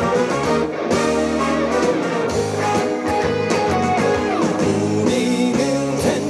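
Trot song music with guitar, played loud and continuous, with a voice singing over it in places.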